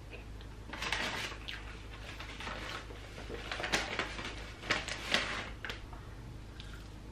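Rustling and crackling from handling food in paper takeout bags, with eating noises, in several short, uneven bursts from about a second in until about six seconds.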